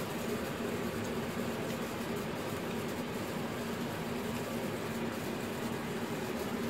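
Steady machine hum with a low drone and a light hiss, unchanging throughout, like a fan or similar appliance running.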